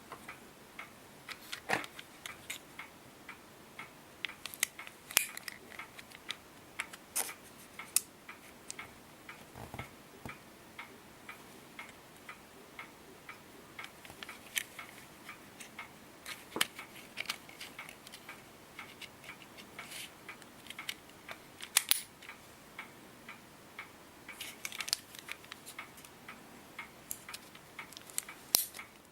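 Small sharp plastic clicks and ticks, irregular and scattered throughout with a few louder snaps, from the plastic parts of a used Advair 250 Diskus inhaler being handled and taken apart.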